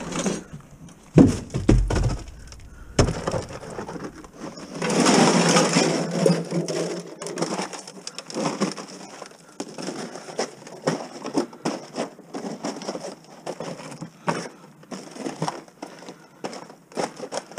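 Handling of scrap: a few heavy thumps from a plastic garbage can about one to three seconds in, then a long crinkling rustle of flexible aluminium foil dryer duct being gathered up, followed by scattered small crackles and knocks.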